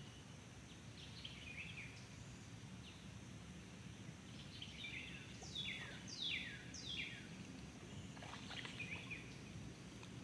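Birds calling over a faint steady background rumble: a short warbled call about a second in, a run of three or four loud downward-sliding notes around the middle, and more chattering calls near the end.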